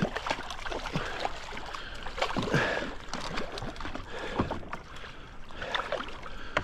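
A hooked brown trout thrashing at the surface beside a kayak, splashing in a series of short irregular bursts, with the loudest about two and a half seconds in.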